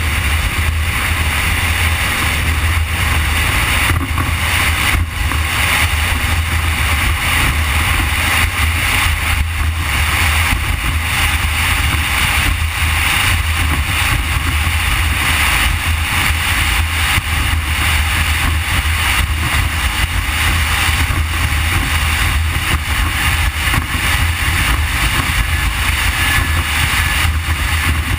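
Triple Mercury 350 Verado supercharged outboards driving a Deep Impact 399 at speed: a steady, loud engine drone with rushing wind and water over it.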